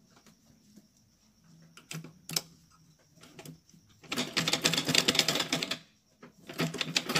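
Old black domestic sewing machine stitching in two quick runs of rapid needle strokes, the first starting about four seconds in and lasting about a second and a half, the second starting near the end. Two light clicks come about two seconds in.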